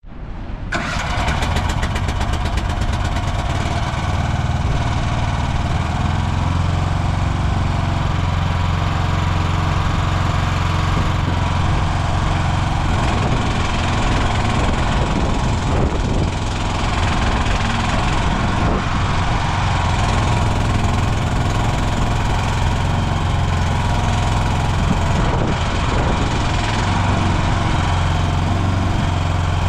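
Future FT16P mini excavator's engine running steadily at a constant speed, with a low even hum.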